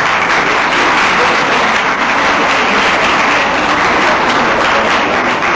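Audience applauding, many hands clapping steadily at the end of a speech.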